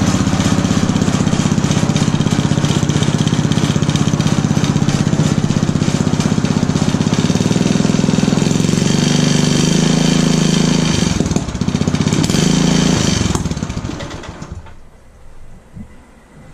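Small garden-tractor engine running steadily through a homemade muffler built inside a straight vertical exhaust pipe, with a fast, even exhaust beat. About thirteen seconds in it is shut off and dies away.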